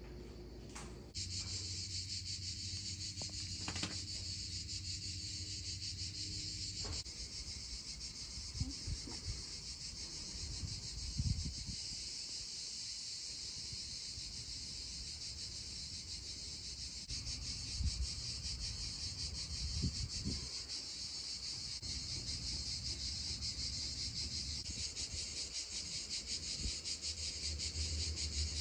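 A steady, high-pitched chorus of insects chirring, with a fast, fine pulsing, setting in about a second in. A few low bumps and a faint low hum lie underneath.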